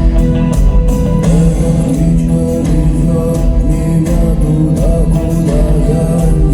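Rock band playing live, loud, with drums, bass and guitar, and a sung vocal line that comes in about a second in. Recorded on a phone in the crowd.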